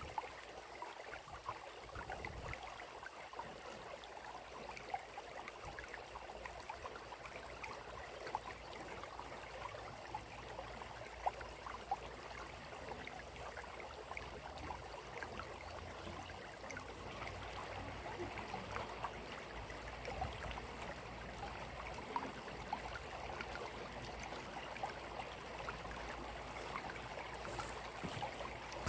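Running water trickling steadily, with many small splashes and drips through it.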